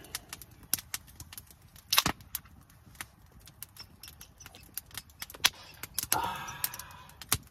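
Scattered small clicks and knocks, a few of them sharper, with a brief rustling noise about six seconds in.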